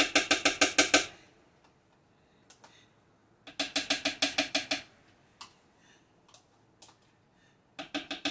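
A spoon rapidly tapping against the rim of a food processor bowl to knock off sour cream. It comes in three quick bursts of about ten ringing taps a second, each lasting about a second: at the start, around the middle, and again near the end.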